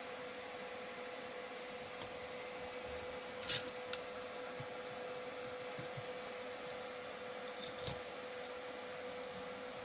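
Light clicks and taps from handling a small plastic 12 V relay and a soldering iron on a workbench. The relay is set down on the desk about a third of the way in, and there is a short clatter near the end as the soldering iron is brought over. Under it all runs a steady faint hum.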